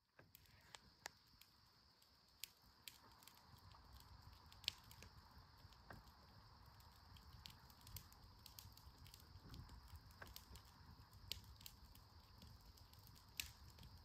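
Near silence: faint outdoor ambience, a steady high hiss with scattered faint ticks and a soft low rumble.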